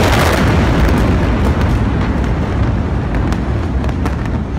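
The rumbling roar of a massive explosion, loud and continuous, with scattered sharp cracks and pops from secondary blasts or burning debris, easing only slightly.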